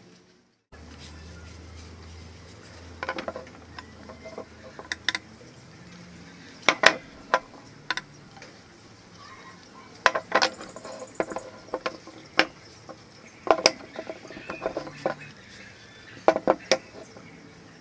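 Blue PVC pipes and elbow fittings knocking and clicking against each other and the bench as they are handled and fitted together, in irregular clusters of hard plastic taps.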